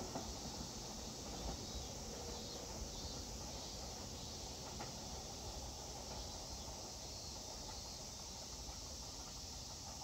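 Faint, steady outdoor background noise with a low rumble, as a departed Tobu 8000-series electric train fades away into the distance.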